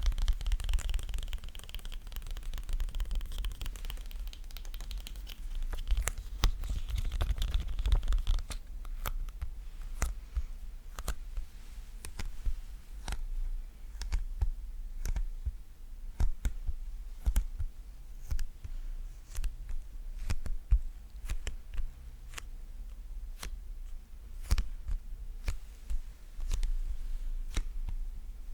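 Sticky ASMR trigger sounds made close to the microphone: a dense crackling, peeling texture for about the first eight seconds, then separate sharp sticky taps or clicks, about one or two a second.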